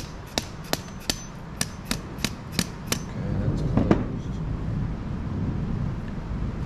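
Light, sharp metal taps, about three a second, from tapping on a gummed-up, stuck diesel injection pump to free it. After about three seconds the taps stop and a louder scraping rumble lasts about a second.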